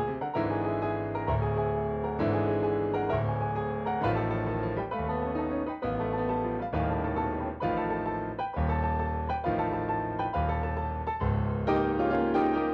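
Piano music with a steady rhythm: bass notes and chords changing about once a second.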